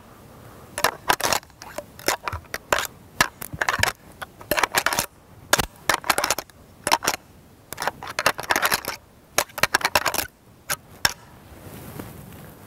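Rattling antlers being clashed and ground together in irregular clusters of sharp clacks, stopping near the end. It imitates two bucks fighting during the rut, to draw a buck in.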